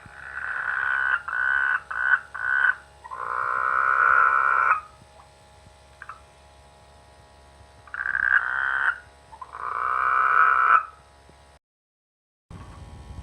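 Frogs croaking their rainy-season mating calls in two spells: a run of short croaks and one longer croak in the first five seconds, then two more croaks about eight seconds in. The sound cuts out completely near the end.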